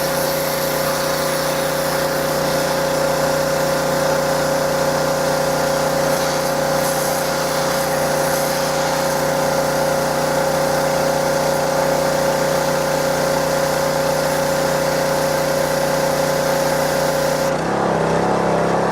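Power Horse 6.5-horsepower gas pressure washer running steadily, its spray hissing as it blasts a laptop. Near the end the high spray hiss cuts off and the engine note shifts lower.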